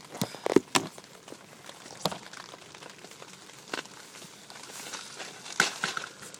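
Handling noise inside a fishing bivvy: a few scattered knocks, clicks and rustles over a faint steady hiss, the loudest just after the start and a cluster near the end.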